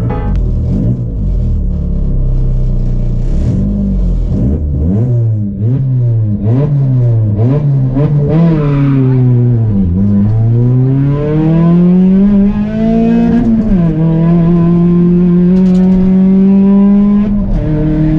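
Peugeot 206 RC Group A rally car's four-cylinder engine heard from inside the cabin, revved up and down repeatedly while the car waits to start. About ten seconds in the revs sag as the clutch bites, then climb as the car pulls away, with an upshift at about fourteen seconds and another near the end.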